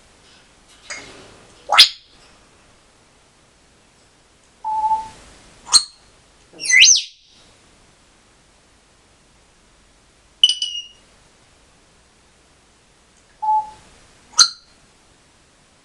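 African grey parrot giving a string of short, separate whistles and squawks with pauses between them: some sharp rising whistles, a looping whistle, and a couple of brief steady beep-like tones.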